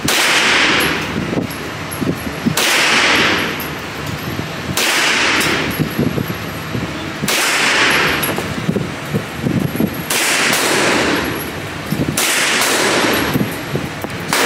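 Six gunshots from a 9mm handgun, spaced about two to three seconds apart, each with a long decaying tail.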